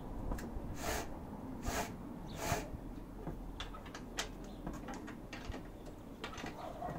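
Chain being re-tensioned on a Husqvarna 545 Mark II chainsaw with a hand tool: three short rasping strokes in the first half, then a series of light metallic clicks.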